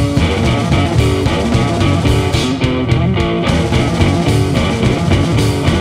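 Instrumental math-punk trio playing live: distorted electric guitar, electric bass and a drum kit, with steady drum hits under shifting guitar notes.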